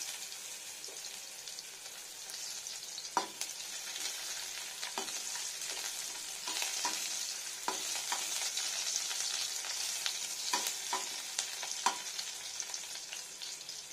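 Chopped garlic sizzling in hot mustard oil in a kadai, with a steady hiss. A perforated steel spoon stirring it clinks against the pan several times.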